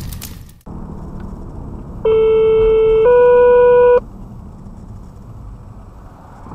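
Two-tone radio paging alert from fire dispatch: one steady tone for about a second, then a slightly higher tone for another second. Under it runs the low drone of the fire engine's cab on the road.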